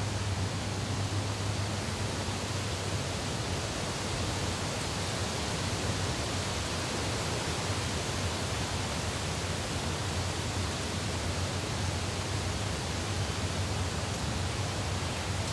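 Steady, even rushing noise with a low hum underneath, without any distinct events.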